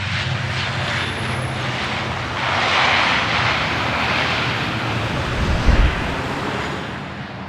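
Aircraft engine running steadily: a loud, constant noise over a low hum, swelling a little about three seconds in, with a brief low thump about three-quarters of the way through.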